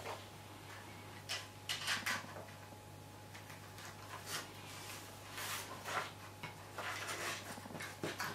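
Light rustling and tapping of card and a taped acetate sheet being handled and pressed into place, in a few short scattered bursts over a low steady hum.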